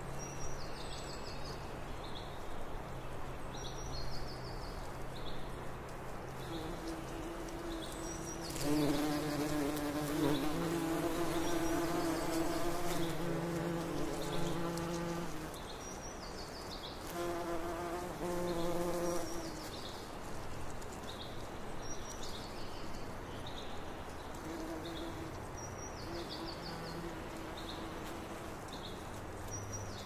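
Bees buzzing in a steady low hum. A bee comes close and buzzes louder and higher from about nine seconds in to fifteen, and again briefly around eighteen seconds. A bird's short high chirps repeat at regular intervals throughout.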